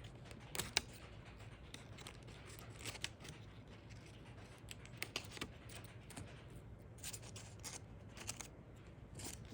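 Permanent marker scratching across paper in short, irregular strokes, colouring in a drawing.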